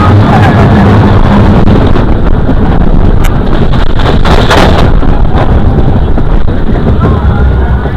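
Arrow Dynamics steel mine train roller coaster running along its track, heard from a rider's seat: a loud, steady rumble of the train's wheels, with wind buffeting the microphone. A few sharp clacks come about halfway through.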